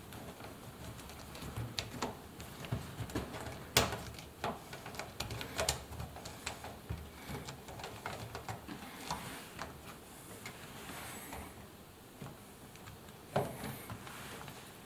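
Hands working a rubber door seal onto a washing machine's door opening: scattered light clicks and knocks with rubbing handling noise, a sharper knock about four seconds in and another near the end.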